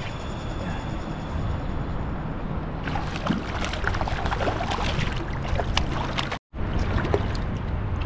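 A hooked fish thrashing and splashing at the water's surface beside a kayak for about three seconds, over a steady low rumble; the sound breaks off suddenly near the end.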